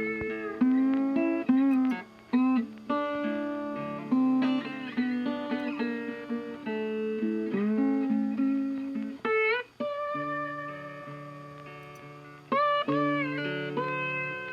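Background instrumental music on a plucked string instrument, with notes that often slide up into pitch.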